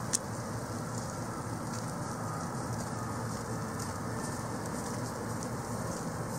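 Steady rain falling, an even hiss with faint scattered drip ticks, and one sharp click just after the start.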